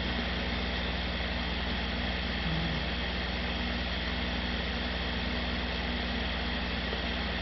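Steady, fan-like hiss with a constant low hum underneath: unvarying background machine noise.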